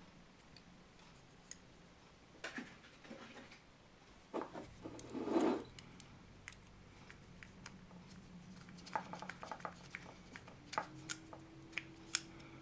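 Small metal clicks and scrapes as a spring-steel air-filter clip is pressed onto a Villiers S10 carburettor and its small screw is turned in with a screwdriver. There is a louder scrape about five seconds in, and a run of sharp ticks in the last few seconds.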